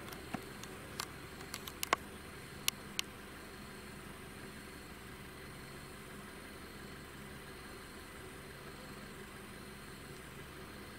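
A vehicle engine idling steadily, with a few sharp clicks in the first three seconds.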